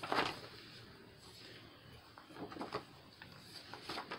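Paper pages of a handmade ring-bound book being turned by hand: a swish of paper right at the start, then softer rustles of the pages being handled about halfway through and again near the end.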